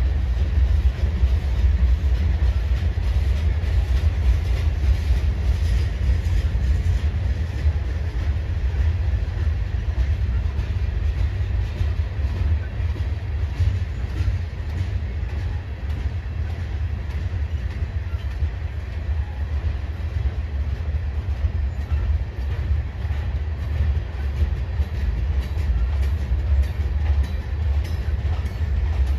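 Freight cars (covered hoppers and tank cars) rolling past: a steady low rumble of steel wheels on the rails, with faint clicking of the wheels over rail joints.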